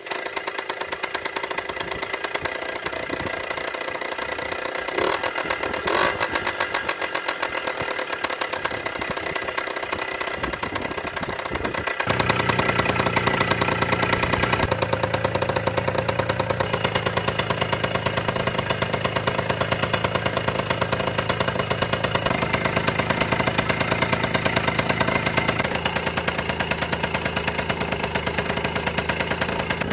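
Engine of a restored 1970s Confersil Cross motorcycle running with a fast, even pulsing beat. It starts abruptly and grows louder and fuller about twelve seconds in, then holds steady.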